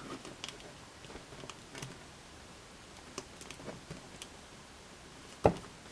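Faint, scattered clicks and ticks of a plastic action figure's joints being bent as it is posed by hand, with one sharper click near the end.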